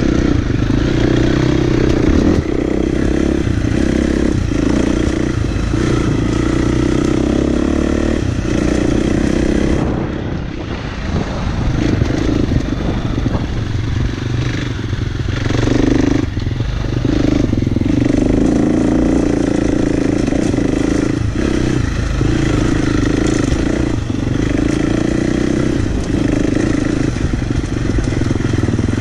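Husqvarna FX 350 dirt bike's single-cylinder four-stroke engine running under throttle on a trail, its pitch rising and falling as the rider works the throttle, with a brief letup about ten seconds in.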